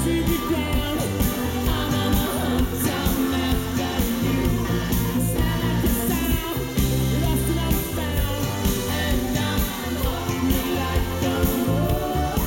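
Live rock band performance: a man singing over synthesizer keyboards, electric guitar, bass and drums, at steady loud volume.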